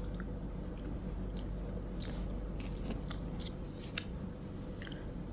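Someone eating a soft klappertaart coconut custard cake: quiet chewing with small, irregular wet mouth clicks over a low steady room hum.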